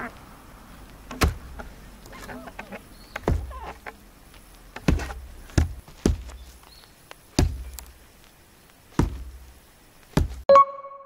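A nata hatchet chopping into the end of an upright scrap-wood board, about eight sharp strikes at uneven intervals, each with a dull thud, without yet splitting the board. Near the end a short pitched tone sounds, then the sound cuts off.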